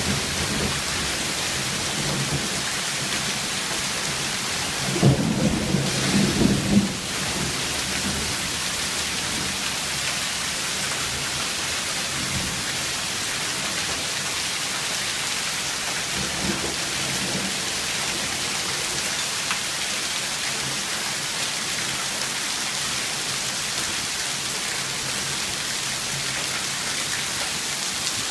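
Hailstorm with heavy rain pelting the pavement, lawn and roof in a steady, dense hiss. A brief loud low rumble stands out about five seconds in.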